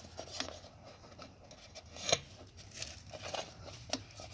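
Light handling noises: rustling with a few scattered clicks and knocks, the sharpest about two seconds in and another near the end.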